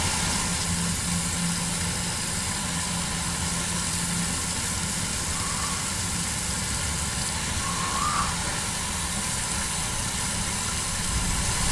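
Steady rushing hiss of water running from a garden hose into an old clay waste pipe, flushing it to test whether it still drains, with a low hum that comes and goes.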